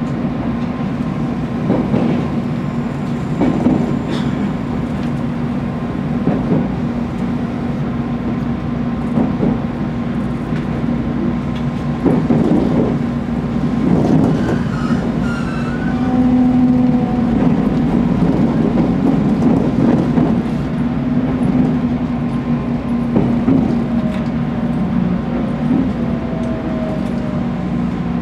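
Running noise of a JR Kyushu 813 series electric train heard from inside the driver's cab: a steady low hum from the running gear and wheels, with knocks recurring every couple of seconds as the wheels pass rail joints. A few brief faint whining tones come in around the middle and near the end.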